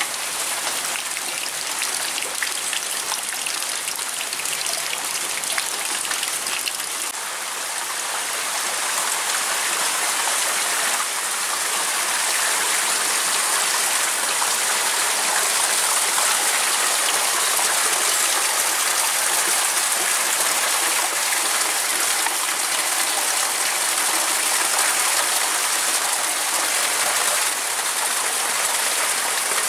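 Steady rain falling, with runoff water pouring and splashing. It grows louder about ten seconds in.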